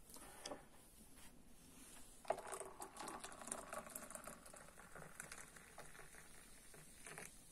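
Boiling water poured from a kettle into a glass mug, a faint steady trickle that starts about two seconds in and stops just before the end.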